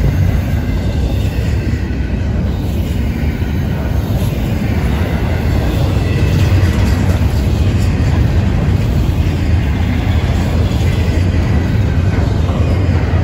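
Double-stack intermodal well cars of a Florida East Coast Railway freight train rolling past close by: a steady, loud rumble of steel wheels on the rails.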